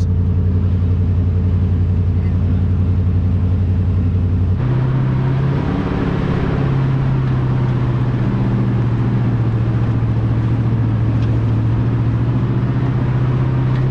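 A 2001 GMC Sierra 2500HD pickup driving on a dirt jeep trail: a steady low engine drone with tyre and road noise. About four and a half seconds in, the engine note steps up in pitch and the road noise grows louder.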